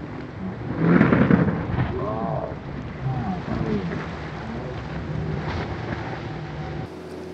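Rigid inflatable patrol boat at speed in rough water: its hull slams down with a loud splash about a second in after leaving the water off a wave, and spray and water keep rushing. The engines' pitch swings up and down as the boat bounces over the chop.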